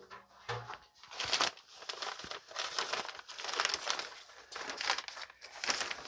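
Plastic bag of earthworm castings crinkling and rustling as it is handled, in a run of irregular crackles that starts about a second in.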